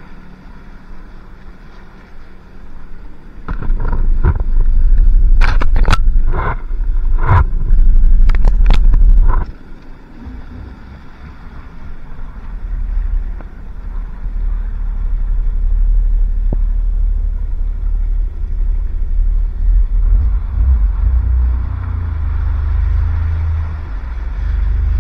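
Jet ski running across open water, heard from a mount on the craft: a heavy, low wind rumble on the microphone over engine and water noise. It is loudest from about four to nine seconds in, where a run of sharp knocks cuts through, then drops suddenly and builds up again.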